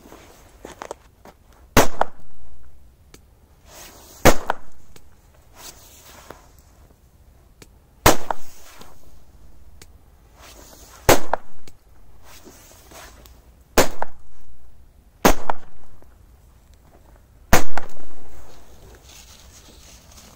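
Korsar-2 firecrackers exploding one after another: seven sharp bangs a few seconds apart, each trailing off briefly.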